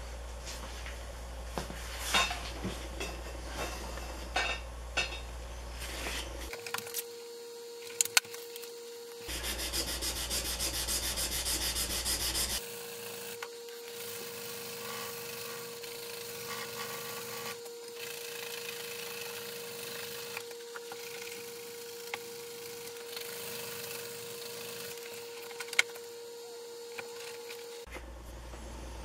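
An antique metal file being rubbed and sanded by hand on the workbench: scratchy rubbing strokes, with a louder, quicker run of strokes for about three seconds near the middle. A faint steady hum runs through much of it.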